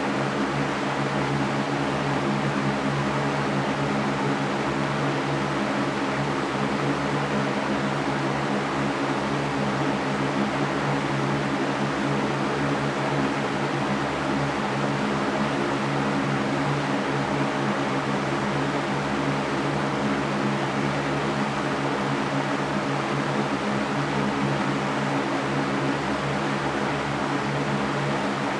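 Electric fan running steadily: an even rush of air with a low, steady motor hum underneath.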